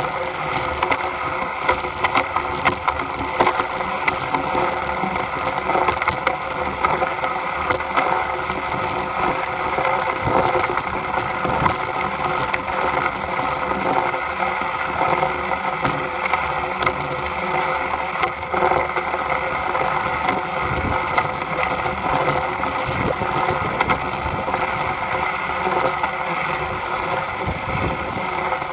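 Wood rubbing and crackling continuously close to the microphone, full of small sharp clicks, over a steady drone.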